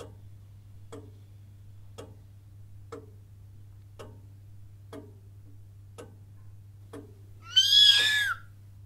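Clock ticking about once a second, then a kitten meowing once near the end, a high cry that bends in pitch.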